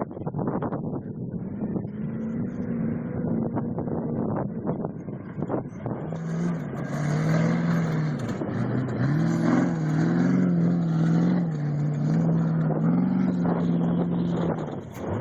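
Off-road race vehicle engine running and revving, its pitch rising and falling again and again. A broad rushing noise joins it about six seconds in.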